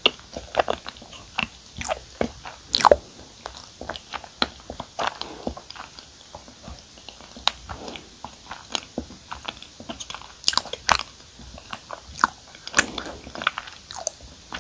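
A person chewing chewy cream-cheese-filled glutinous rice cake (chapssaltteok), with many sharp mouth clicks at an uneven pace.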